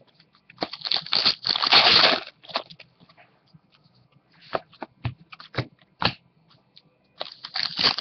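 Trading card pack wrappers being torn open and crinkled, in two spells, with a few sharp clicks of cards being handled in between.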